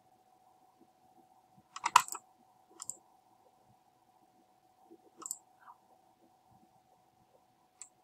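Computer mouse clicks: a quick cluster of clicks about two seconds in, the loudest, then single clicks near three seconds, a couple around five seconds and one just before the end, over a faint steady hum.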